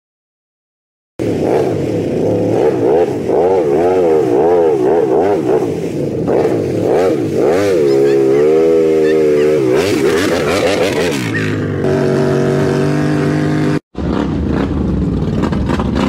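After about a second of silence, an ATV engine revs hard and repeatedly, its pitch rising and falling again and again as it churns in deep mud. Later it holds a steadier pitch, with one brief dropout.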